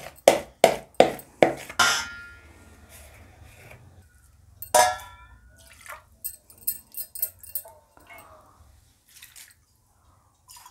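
A spoon knocks against the rim of a bowl about five times in quick succession, tapping spinach batter off it. About five seconds in a steel vessel gives one ringing clink, followed by liquid being poured from a small steel cup into the batter, with light trickling and splashing.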